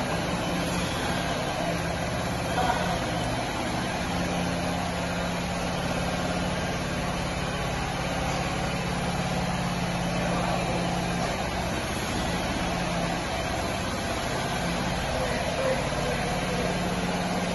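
Truck engine running steadily at low speed while it slowly moves a tram on its trailer, a constant low hum with no sudden events.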